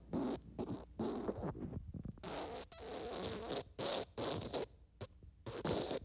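Wet, diarrhea-style fart sounds in a string of short bursts with brief gaps between them.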